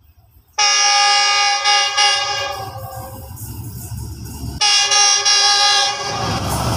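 Pakistan Railways GEU-40 diesel-electric locomotive sounding its horn in two long blasts as it approaches at speed, the first starting about half a second in and the second about four and a half seconds in. The rumble of the engine and wheels grows louder toward the end.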